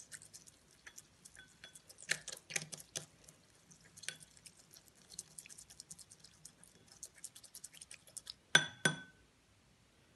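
A spoon stirring urea granules into water in a small glass bowl, with light scattered clicks and scrapes against the glass. Near the end come two sharp ringing clinks of the spoon on the bowl, about a third of a second apart.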